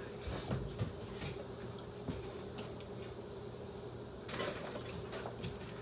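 Soft handling noises at a kitchen sink: a few small knocks and rustles, a cluster about half a second in and another near the end, over a steady faint hum.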